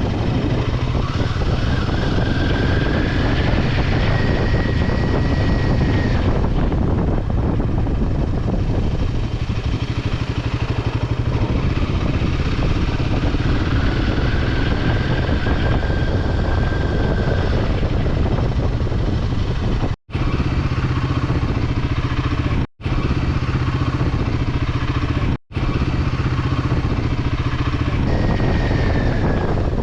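Motorcycle running along a road, its engine hum mixed with heavy wind rush on the microphone. The sound cuts out briefly three times in the second half.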